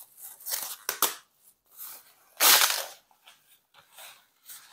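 Plastic protective wrap on a full-length mirror crinkling and rustling as it is pulled off. There are a couple of sharp clicks about a second in and one loud crackling rustle about two and a half seconds in.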